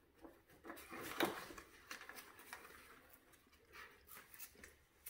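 Faint rustling and a few light clicks as a fabric seat strap is handled and threaded behind a wagon seat, with one sharper click about a second in.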